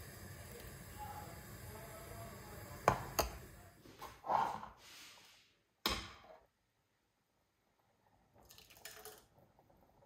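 Metal ladle working a pot of thick tomato soup: soft liquid sloshing and dripping, with a few sharp clinks of the ladle against the pot, the loudest a little under 3 s and about 6 s in. It then falls briefly silent before faint soft sounds near the end.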